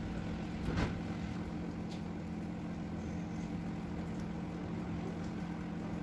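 Steady low mechanical hum over an even hiss of sleet falling on a wet courtyard, with a short scuff or knock about a second in.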